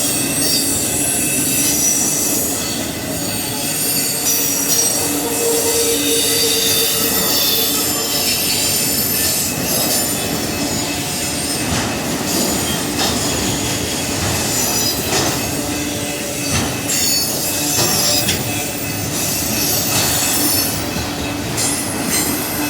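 Union Pacific auto rack freight train rolling past, its steel wheels squealing at a high pitch over steady running noise, with scattered clacks from the rail joints.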